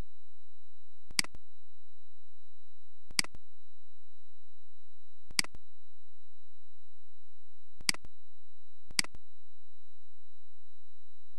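Five single computer mouse clicks, irregularly spaced, over a steady high-pitched tone.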